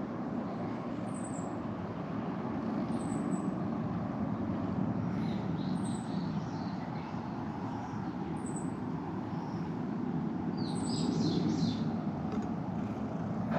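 Outdoor ambience: a steady low background rumble with birds chirping over it. A faint high note repeats every second or two, and a quick run of chirps comes near the end.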